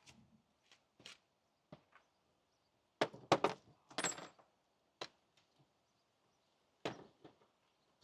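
Metal spanner clinking and knocking against a brake caliper bolt: a few faint taps, a cluster of louder knocks about three to four seconds in, one with a brief metallic ring, then single knocks about five and seven seconds in.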